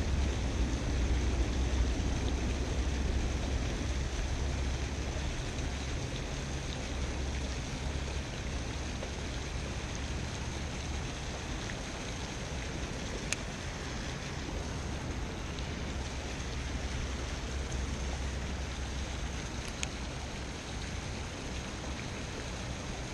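Pond aerator jets splashing steadily into the water, over a low rumble that is strongest in the first several seconds. Two faint clicks come around the middle.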